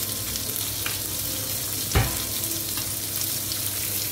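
Halved lobster heads frying in hot olive oil in a pan, a steady sizzle, with a single knock about halfway through.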